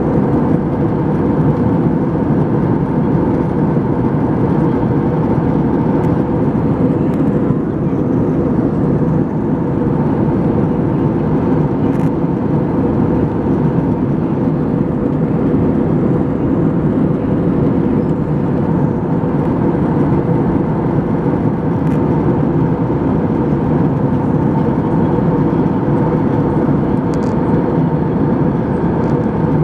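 Steady cabin noise of a jet airliner in flight, heard from a window seat: the even rush of engines and airflow, with a faint steady hum.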